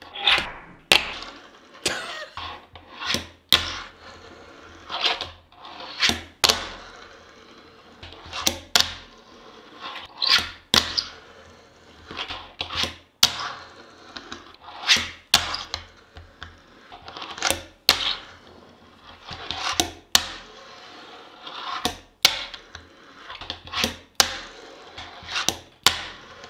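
Fingerboard tricks on a wooden desk top: sharp wooden clacks of the tail popping and the board landing, often in quick pairs about every second, with the small wheels rolling on the wood between them.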